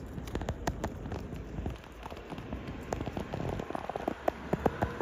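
Irregular patter of many small sharp ticks over a steady noisy background, growing denser and louder toward the end.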